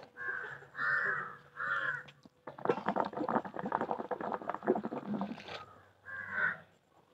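A crow cawing three times in quick succession, then about three seconds of rapid gurgling as a hookah's water bubbles under a long drag, then one more caw near the end.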